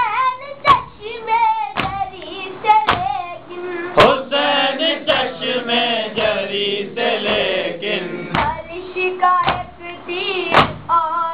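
Voices chanting the refrain of an Urdu noha lament, with loud, regular chest-beating slaps (matam) about once a second that keep the beat.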